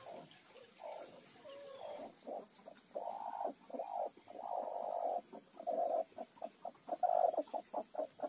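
Chickens clucking: a run of short calls that come quicker and choppier toward the end.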